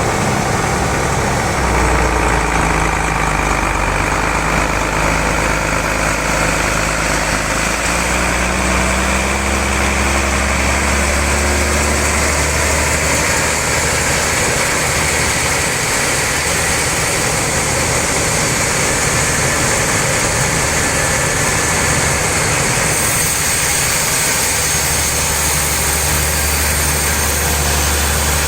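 Sawmill machinery running steadily, with a constant low engine-like hum under broad mechanical noise.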